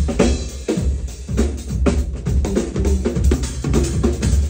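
Several drum kits played together in a fast drum shed, with rapid, dense snare, bass drum and cymbal hits.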